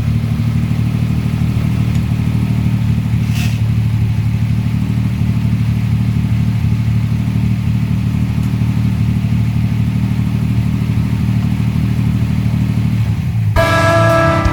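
An engine running steadily at an even speed, with a low hum throughout and a single brief click about three seconds in. Guitar music comes in near the end.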